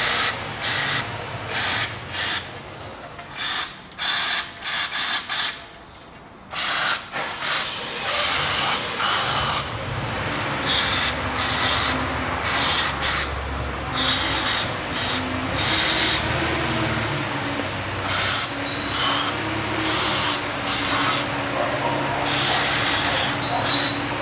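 Aerosol carburetor and throttle cleaner sprayed through a straw onto a throttle body, in repeated hissing bursts, some short and some a second or more long, as the throttle body is washed.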